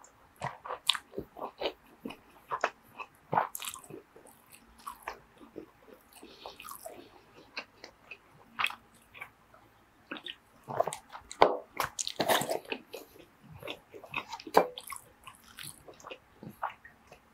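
Close-miked mouth sounds of drinking and eating: gulps and swallows from a canned drink mixed with chewing smacks, as an irregular run of short wet clicks, busiest about two-thirds of the way through.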